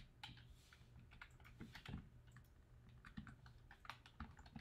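Faint computer keyboard typing: irregular keystrokes in quick runs, over a low steady hum.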